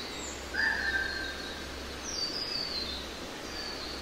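Birdsong over a steady background hiss and low hum: a clear whistled note about half a second in, then a run of high notes stepping downward around two seconds in, with high notes returning near the end.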